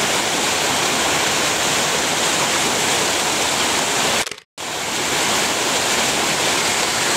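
Creek water rushing steadily over rocks. The sound drops out completely for a moment about four and a half seconds in, then resumes.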